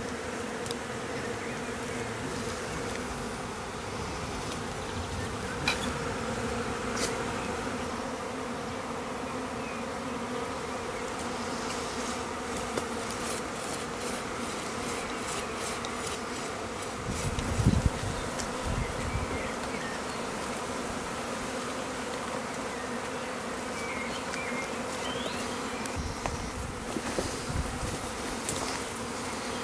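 A honeybee swarm clustered on a tree branch, buzzing in a steady hum of many bees, with a few faint clicks and a brief low thump a bit past halfway.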